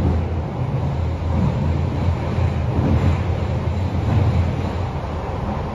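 Running noise of a Toei Oedo Line 12-600 series linear-motor subway car, heard inside the car: a steady low rumble of the train under way.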